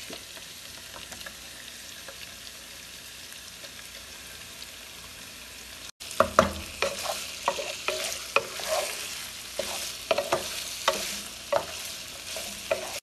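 Beef tendon and shank pieces sizzling steadily in hot oil in a frying pan. About halfway through, a wooden spatula starts scraping and knocking against the pan as the meat is stir-fried, with the sizzle continuing underneath.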